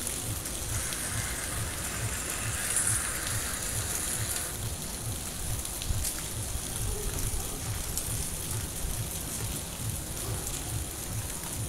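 Heavy rain falling on rooftops and a wet street, a steady hiss with water running off. Underneath, the bass beat of distant music thumps about three times a second.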